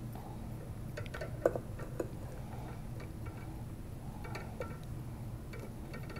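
Small clicks and taps of glass and metal as an inverted gas collection tube is handled in a ring-stand clamp, with two sharper clicks about half a second apart a second and a half in, over a steady low hum.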